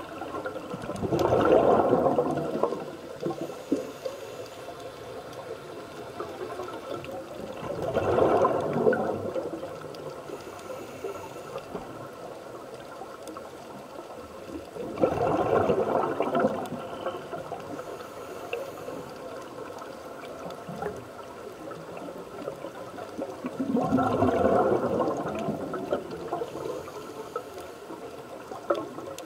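Scuba diver's exhaled bubbles gurgling out of the regulator, four bursts of about two seconds each, several seconds apart with each breath. Between them a faint steady hiss with scattered small crackles.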